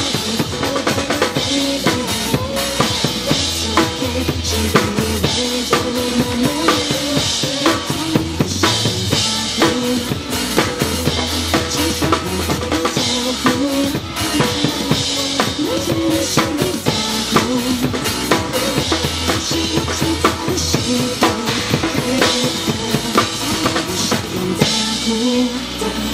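Drum kit played live along to a recorded pop song: a steady, busy beat of bass drum and snare hits over the song's music.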